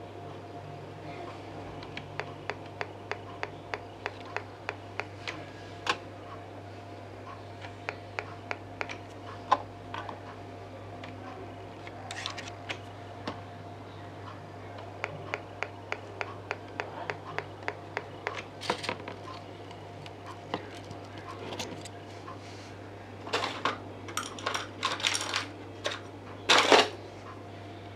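Runs of small, sharp clicks at about three a second, from small hard parts being handled on an electronics workbench. Near the end come several louder metallic rattles and clinks. A steady low hum runs underneath.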